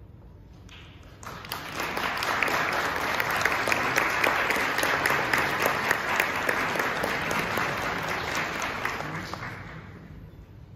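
An audience applauding, starting up about a second in and dying away near the end.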